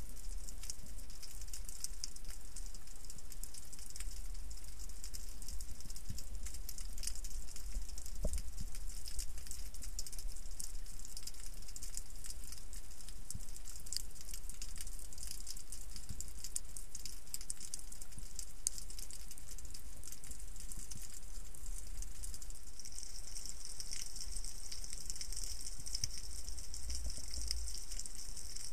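Underwater ambience picked up by a camera in its waterproof housing: a constant crackle of tiny clicks and hiss over a low rumble, the hiss growing stronger near the end.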